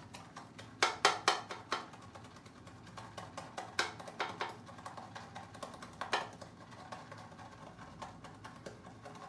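Badger-hair shaving brush being worked back and forth over soap in a plastic lathering bowl. About a second in there are four quick knocks of the brush against the bowl, then a few scattered knocks and clicks over soft scratchy bristle scrubbing.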